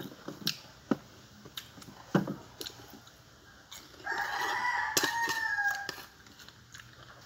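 A rooster crowing once, a single drawn-out call of about two seconds beginning a little past the middle and dropping in pitch at its end. A few sharp clicks and knocks come before it.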